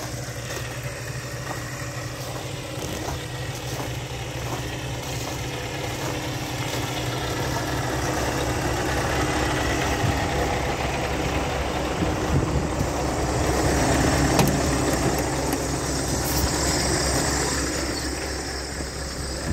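Scania R 520's V8 diesel engine idling steadily, growing louder toward the middle and easing off again near the end.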